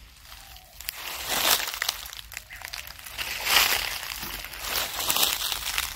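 Crinkly sheet material being handled and moved about, rustling and crinkling in irregular bursts.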